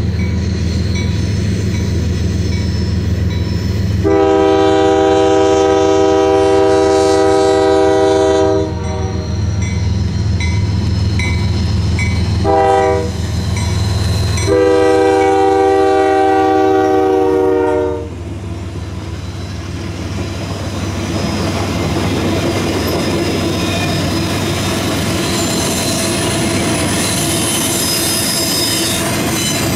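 CSX freight locomotive's multi-chime air horn sounding a long blast, a short one and another long one over the heavy diesel rumble as it approaches. Once it is past, the horn stops and the steady rolling rumble and clatter of the loaded welded-rail flatcars goes on.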